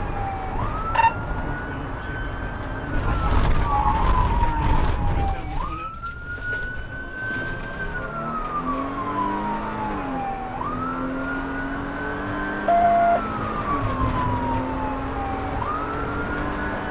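Police car siren on its wail, cycling about every five seconds: a quick rise, a short hold, then a slow fall. Under it runs the cruiser's engine and road rumble. A short loud beep comes about thirteen seconds in.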